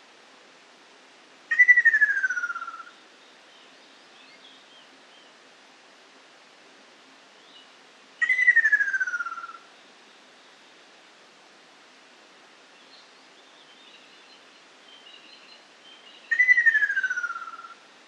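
Ruddy kingfisher giving its descending rolling call three times, about seven seconds apart, each a trill that falls in pitch over about a second. Faint chirps of other birds between the calls.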